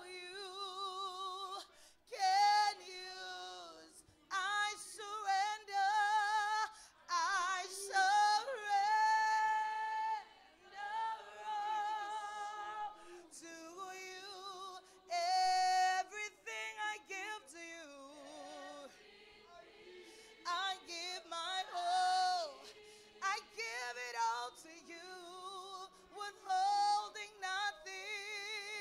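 A woman singing into a microphone, wordless or hard-to-make-out phrases with wide vibrato on long held notes and quick melodic runs, broken by short pauses, with little instrumental backing.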